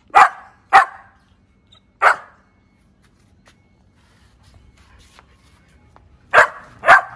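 A dog barking: five short, sharp barks, two quick ones at the start, a single one about two seconds in, and two close together near the end.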